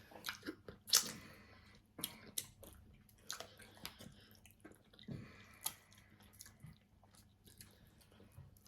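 Close-up chewing and mouth smacking: irregular wet smacks and clicks from a person eating fish and soft starch with soup.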